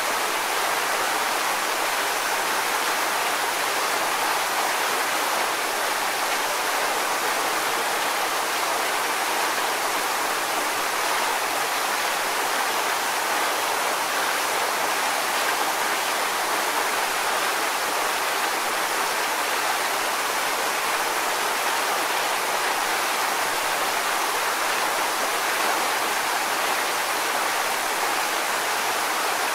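Waterfall: water falling and splashing in a steady, even rush, mostly in the middle and upper range with little low rumble.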